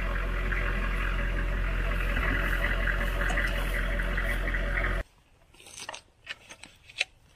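A Humvee engine idling steadily, cut off abruptly about five seconds in. What follows is much quieter, with a few light clicks and knocks from metal antenna mast sections being handled.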